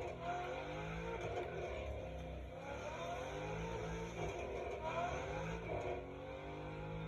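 Ford Mustang Shelby's V8 engine accelerating, its pitch climbing and dropping back several times as it works up through the gears.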